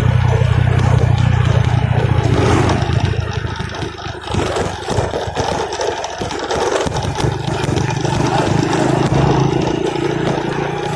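Motorcycle engine running while riding. It eases off for a few seconds in the middle, then pulls strongly again.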